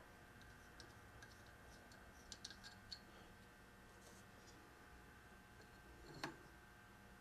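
Faint small clicks and taps of brass parts on a tiny toy steam engine's boiler: a little run of clicks as the filler cap is unscrewed and taken off, then one sharper tap near the end as the plastic syringe tip meets the filler hole.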